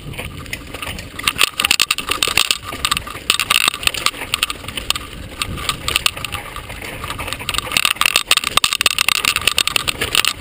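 Mountain bike rolling fast down a bumpy dirt singletrack, its frame and parts rattling and clattering over the rough ground with tyre noise on the dirt.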